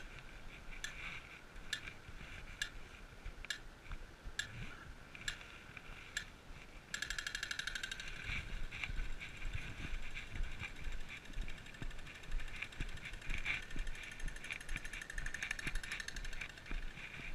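Audible pedestrian crossing signal ticking at a Dutch traffic light: slow ticks about once a second while the pedestrian light is red, switching about seven seconds in to rapid ticking when it turns green, the signal that it is safe to cross.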